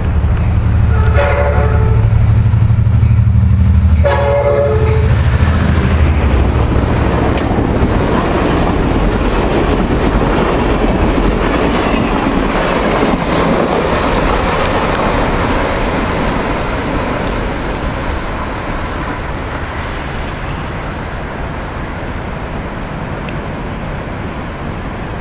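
EMD F59PHI diesel locomotive on an Amtrak Pacific Surfliner sounding its horn in two short blasts about three seconds apart, over its diesel engine running heavily as it comes close. Then the bilevel passenger cars roll past with a steady rail clatter that slowly fades as the train goes away.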